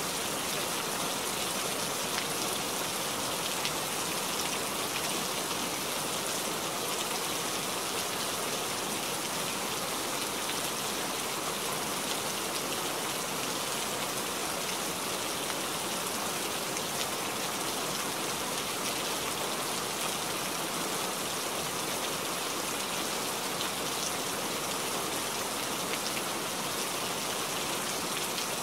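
Steady rain falling: an even hiss with scattered drop ticks, holding at one level.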